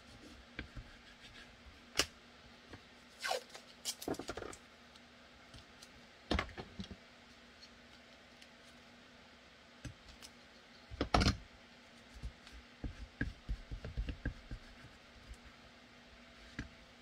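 Blue painter's tape being torn and pressed down by hand onto a gun mold: scattered short rips, crinkles and taps, with the loudest cluster about two-thirds of the way through, followed by a run of small clicks.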